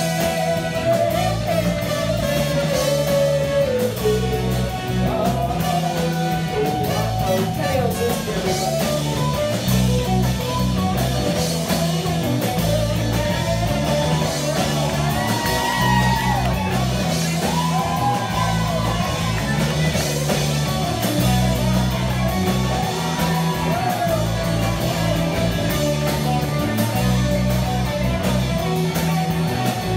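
Live rock band playing an instrumental passage: electric guitars, bass and drum kit with saxophone and trumpet, a lead line bending up and down over a steady beat.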